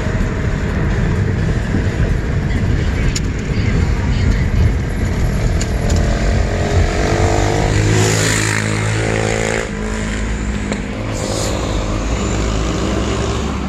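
Car driving on a city road, heard from inside: steady road and wind noise, with an engine hum that settles into a steady low tone from about seven seconds in.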